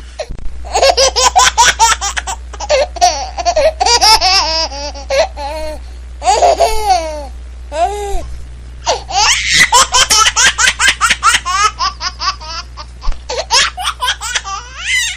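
A little child laughing in repeated high-pitched fits of giggles, with short breaks for breath and a few rising and falling squeals.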